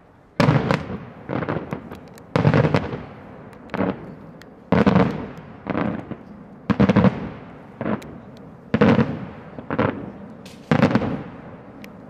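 Daytime aerial fireworks shells bursting in a rapid barrage: loud sharp bangs, one or two a second and often in quick pairs, each trailing off in a rumbling echo.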